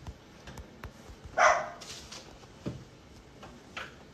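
A short animal call about a second and a half in, with a fainter one near the end.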